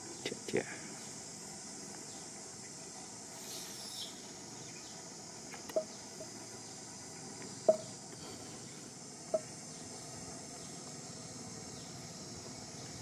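Steady high-pitched drone of insects, with a few short sharp clicks: two close together near the start and three more spread through the middle, the second-to-last the loudest.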